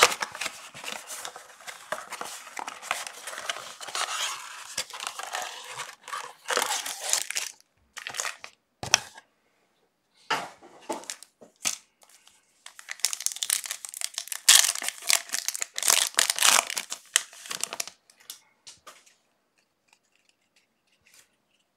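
Foil trading-card pack wrappers being torn open and crumpled by hand, in two long spells of crinkling with a few short rips between them; the second spell is louder.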